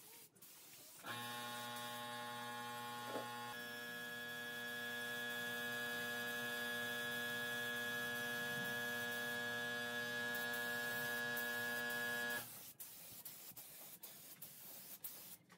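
A steady electric buzzing hum with many overtones, over a faint hiss. It starts abruptly about a second in, shifts slightly in tone a few seconds later, and cuts off suddenly near the end.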